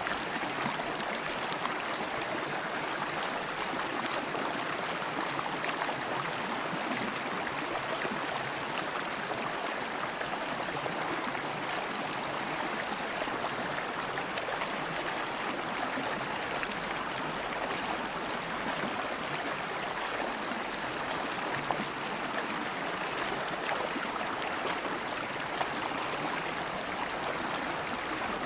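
River water flowing steadily over rocks, a continuous rushing and burbling.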